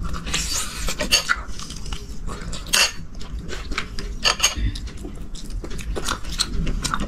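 Cutlery and dishes clinking while eating: irregular sharp clicks and scrapes, the loudest a little under three seconds in.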